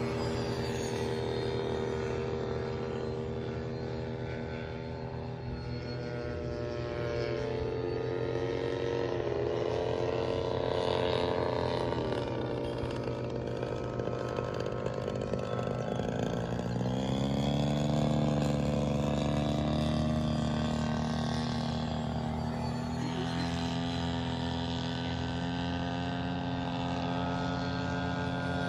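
Radio-controlled model airplane's engine running in flight, a steady buzzing drone whose pitch slides down and back up near the middle and climbs again a little after, as it throttles and passes.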